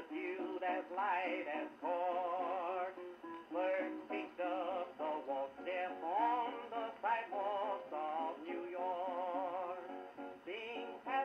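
A 1914 Victrola VV-X hand-cranked acoustic phonograph playing a 78 rpm disc of a man singing with strong vibrato. The sound is thin, with no bass and little high treble.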